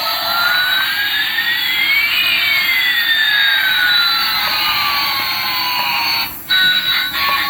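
Electronic jet-engine sound: a steady hiss with two whistling tones, one rising and one falling, that cross about two seconds in. It cuts off suddenly about six seconds in.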